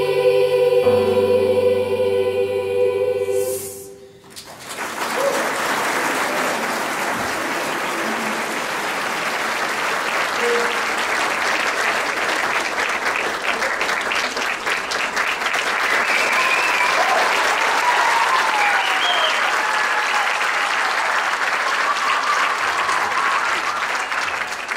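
Children's choir holding a final chord that cuts off about four seconds in, followed by an audience applauding steadily, with a few cheering voices rising above the clapping partway through.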